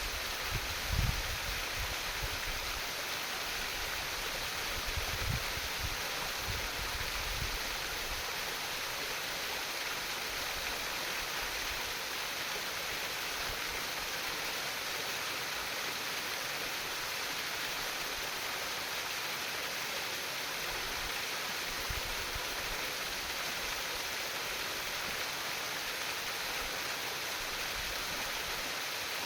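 Water in a stream or river babbling and rushing steadily, with a few brief low bumps in the first quarter and one more later.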